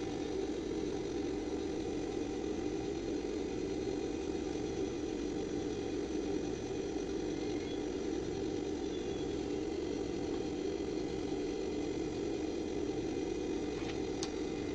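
Steady low mechanical hum that does not change, with one faint click near the end.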